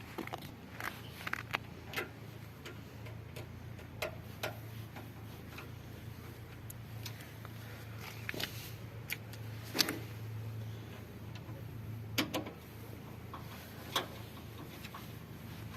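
Scattered, irregular clicks and light knocks of hand work on the washing machine's parts and fittings as it is put back together, the sharpest about ten seconds in, over a steady low hum.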